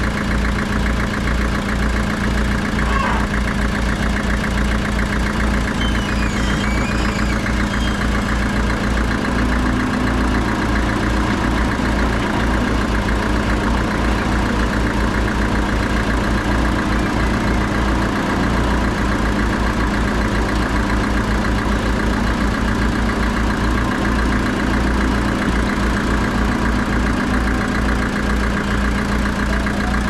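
Diesel engine of an old tracked hydraulic excavator running steadily as it digs, with a constant low throb and no revving.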